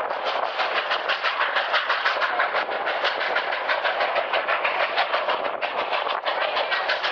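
Durango and Silverton narrow-gauge steam train running, heard from aboard, with a fast, even beat of short strokes.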